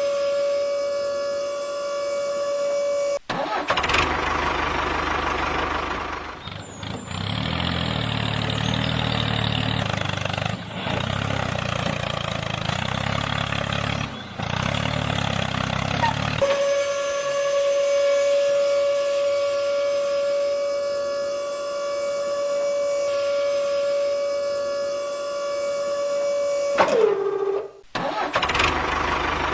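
A small motor whining at one steady pitch, cut sharply to a long stretch of rumbling engine noise and then back to the whine. Near the end the whine drops in pitch as it winds down and stops abruptly, and the engine noise returns.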